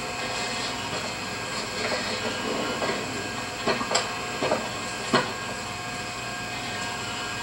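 A steady mechanical drone, like a running motor, with four sharp knocks between about three and a half and five seconds in.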